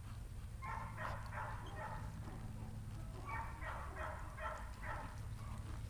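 A dog barking in two quick runs: about four barks near the first second, then about six more between three and five seconds in.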